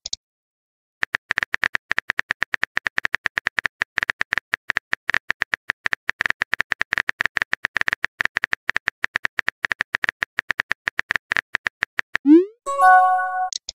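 Phone keyboard typing sound effect: rapid, even key clicks, several a second, for about eleven seconds, then a rising swoosh and a short chime as the text message is sent near the end.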